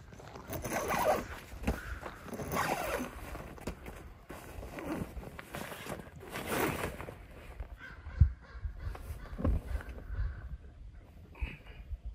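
Rooftop tent's fabric door being unzipped in several long pulls, with a few dull knocks near the end as someone moves about inside the tent.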